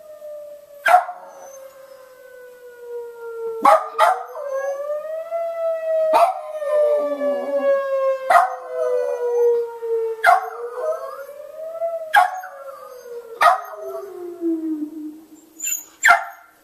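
A siren wailing, its pitch slowly rising and falling, while a small terrier howls along, giving short sharp yelps about every two seconds that are louder than the siren.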